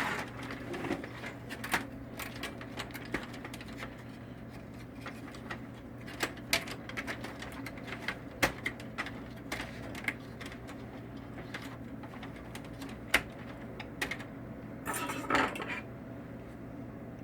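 Scattered clicks and light knocks of a printer's main circuit board being handled and fitted back into its metal chassis, with a short rattling clatter about fifteen seconds in. A steady low hum runs underneath.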